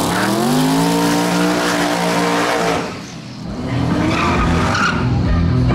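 High-powered drag-racing car accelerating hard: the engine's pitch climbs and holds, drops away briefly about three seconds in, then climbs again.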